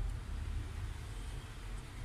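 Steady low rumble of background noise with a faint hiss, with no distinct event.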